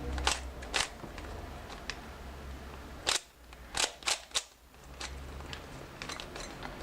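A Cyclone Boys 3x3x3 plastic speed cube being turned by hand: irregular sharp clicks and clacks of the layers snapping round, with a few faster ones about four seconds in and lighter ticks near the end. The cube is loose and not yet tensioned.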